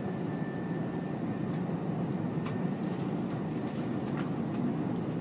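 Steady cabin noise of an airliner in descent, the engines and rushing air heard from inside the cabin, with a few faint clicks.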